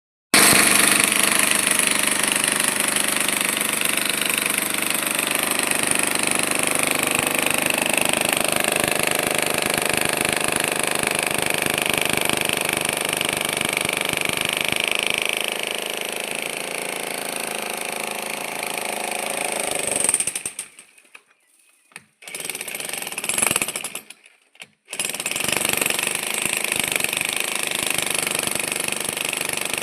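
A 16 kg electric breaker hammer chiselling into concrete, with continuous rapid hammering. It stops for about a second twice, two-thirds of the way through, then carries on.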